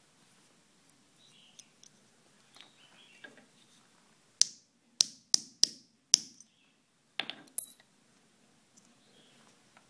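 Metal cap and wire cage of a champagne cork being worked by hand with a thin metal tool: faint scrapes, then five sharp metallic clicks in quick succession about halfway through, then a short clatter with a brief high ring as the metal cap is set down.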